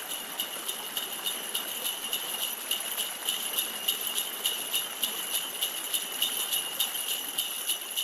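Sleigh bells jingling in a quick, steady rhythm.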